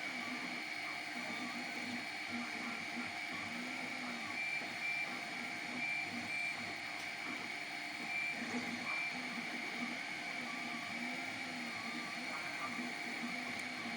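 3D printer printing: its stepper motors whir in short tones that keep gliding up and down in pitch as the print head moves back and forth, over a steady high whine.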